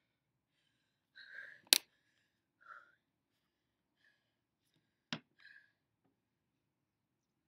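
A person catching their breath after exercise: a few short, heavy exhales. Two sharp clicks cut through, the louder about two seconds in and another about five seconds in.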